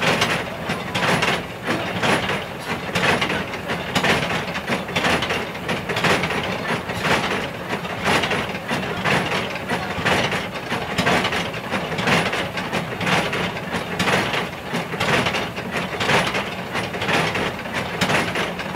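Rice-cake mill machinery running with an even, rhythmic mechanical clatter, with a strong beat about once a second and lighter strokes between. It sounds like a train going along the rails.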